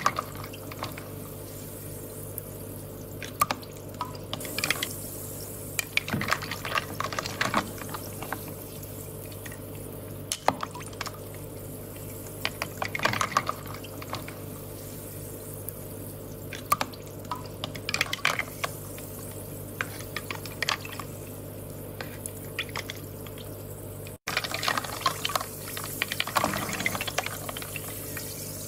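Water trickling and dripping, in irregular clusters of small splashes and pops over a steady low hum. There is a momentary dropout about three-quarters of the way through, after which the splashing is busier.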